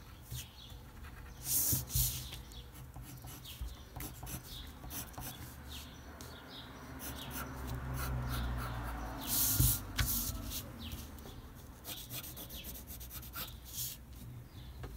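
Pencil scratching across paper in short strokes as lines are drawn, with a low rumble swelling in the middle as the paper is handled.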